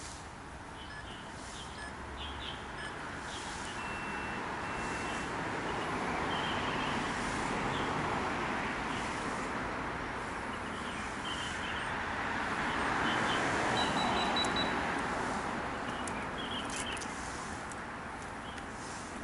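Road traffic noise swelling and fading twice as vehicles pass, with birds chirping in short calls over it.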